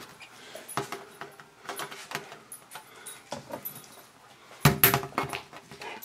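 Light, irregular metallic clicks and clinks from a hand nibbler and a thin sheet-metal door panel being handled, with a louder clatter about five seconds in.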